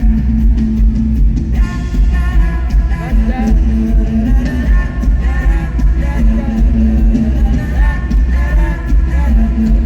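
Live pop-rock band playing loudly through an arena sound system, with heavy bass and drums; the lead vocal comes in about a second and a half in.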